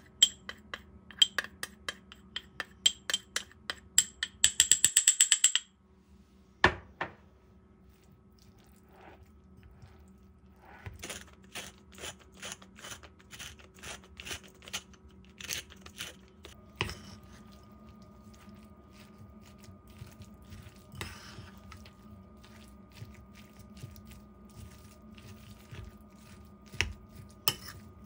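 Metal spoon tapping against a small ceramic cup to knock corn starch out into a bowl: a run of quick clicks that speeds into a fast rattle about five seconds in. After a pause, a second run of regular clicks, about two a second, comes as pepper is sprinkled over the mix, then fainter scattered ticks.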